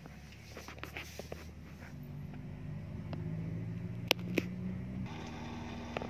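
Daewoo 7 kg washing machine humming after spin is selected, a low steady hum that builds and then cuts off about five seconds in, with two light clicks just before, followed by a faint hiss. It is the fault under test: the machine hums but the belt and drum do not turn.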